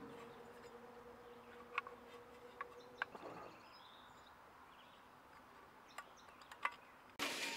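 Faint scattered clicks and taps of small parts being handled: the side-mirror mount's bolt, spring and plastic pieces, over quiet room tone. Near the end the background hiss steps up suddenly.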